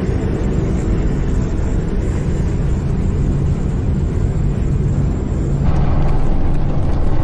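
Turboprop aircraft engines droning as a steady low rumble, which grows louder about five and a half seconds in.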